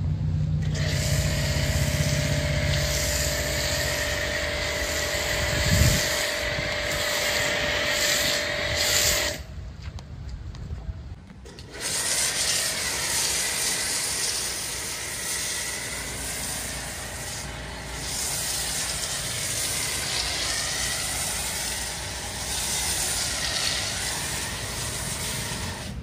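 A pressure washer's foam cannon spraying foam onto a car with a steady hiss, with the washer's motor humming underneath. The spray stops for a couple of seconds about ten seconds in, then starts again.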